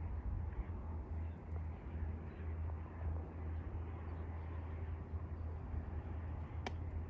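Steady low mechanical rumble of wood-sawing going on nearby, with one sharp click near the end.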